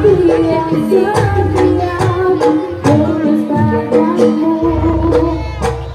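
Live jaranan (kuda lumping) accompaniment music: sharp drum strokes and deep beats under a wavering melody line, with a singing voice.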